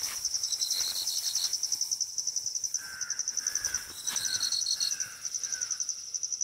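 Insects trilling in the grass: one steady, high, rapidly pulsing trill throughout, with a second, lower trill coming in short bursts near the start and about four seconds in. Midway through, a bird gives a run of five short falling notes.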